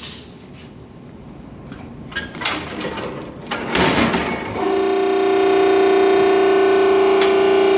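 Cardboard baler being started: a few clunks and clicks, then about four and a half seconds in its motor comes on with a loud, steady hum.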